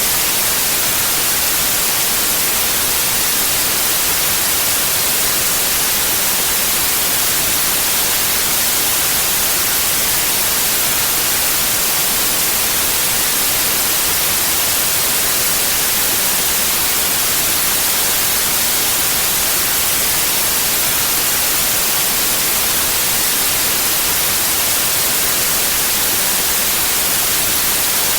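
Steady white noise: an even, unchanging hiss that is strongest in the high frequencies.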